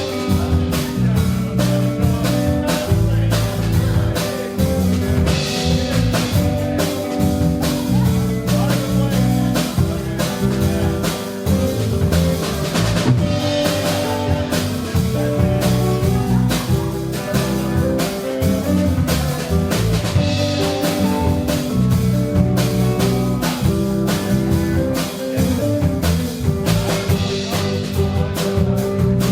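A live rock band playing a steady driving groove, with a drum kit hitting fast and evenly over sustained bass and electric guitar notes.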